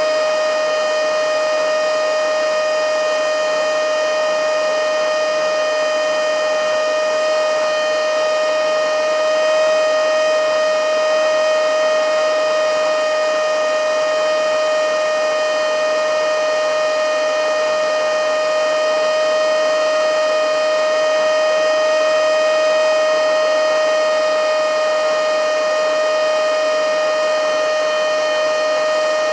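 Handheld blow-and-suck mini vacuum cleaner (XCQ-5588 / XCQ-508) running steadily at full speed: a loud, steady high-pitched motor whine over the hiss of rushing air.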